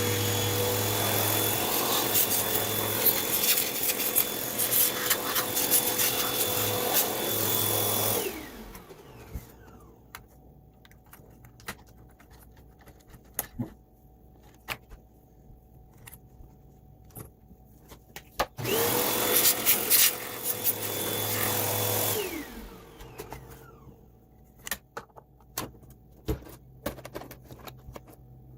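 Vacuum cleaner running with a steady whine, switched off about eight seconds in and winding down, then switched on again for a few seconds in the middle and winding down once more. Light clicks and handling noises fall between the two runs.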